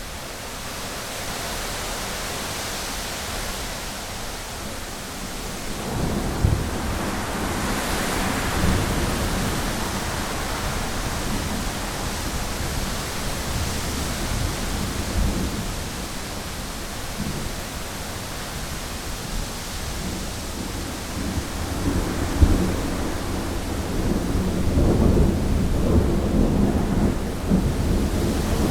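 Thunderstorm: steady hiss of heavy rain, with rolling thunder rumbling in about six seconds in and building again near the end.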